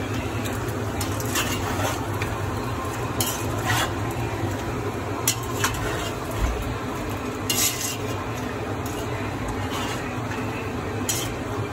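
Meat frying and sizzling in a cast-iron kazan while a metal skimmer stirs it, with now and then a short scrape or clink of metal on the pot. The meat is cooking in its own liquid, which is still boiling off.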